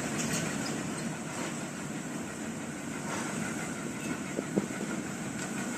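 Steady low background rumble, with a faint tick or two near the end.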